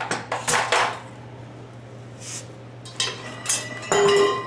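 Metal tools being handled, clinking and clattering in a few quick knocks, then a louder ringing metal clank near the end.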